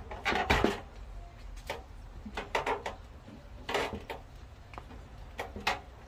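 A series of short knocks and clatters from hard objects being handled and set down, in about five groups: near the start, just under 2 s in, around 2.5 s, near 4 s, and again late.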